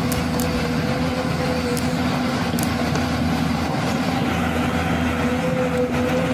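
Vehicle engine running steadily: an even drone with a humming tone that wavers slightly in pitch, and a few faint clicks over it.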